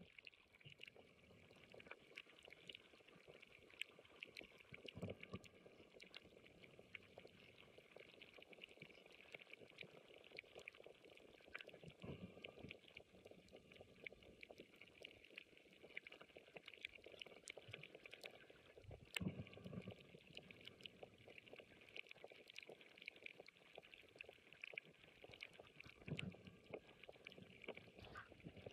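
Faint underwater coral-reef ambience: a dense, constant crackle of tiny clicks, typical of snapping shrimp. Soft low whooshes of water move past the camera housing about every seven seconds, the loudest near the middle.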